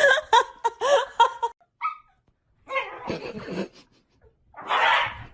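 A dog whining and yipping in short, rising and falling calls for about a second and a half, then a pause, and later rough noisy sounds with a louder burst near the end.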